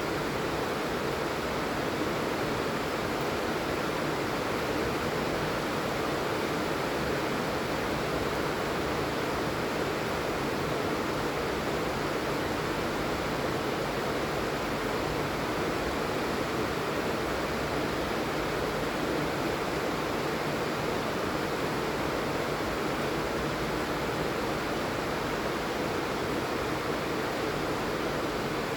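Steady heavy rain falling, a continuous even hiss and patter with no breaks.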